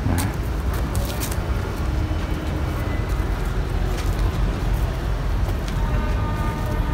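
Steady low outdoor background rumble, with a few faint clicks scattered through it.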